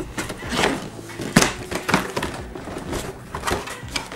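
Large cardboard box lid being pulled open and lifted, with scraping, rustling and tapping of cardboard and a sharp knock about a second and a half in.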